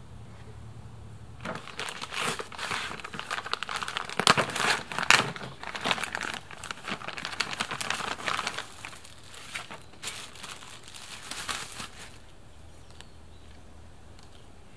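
Clear plastic zip-lock bag crinkling as it is handled and a steel roof rack is pulled out of it. The crinkling starts about a second and a half in, is loudest around the middle, and stops a couple of seconds before the end.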